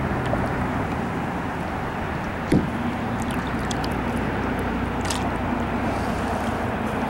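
Kayak on a river: a steady rushing background of water and air, with a few faint ticks and one short hollow knock about two and a half seconds in, typical of the paddle bumping the kayak hull.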